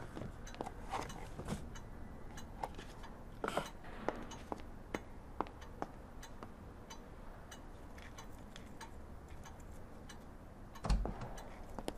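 Paper gift bag and tissue paper being handled: soft rustling with scattered small clicks and ticks, and a dull thump near the end.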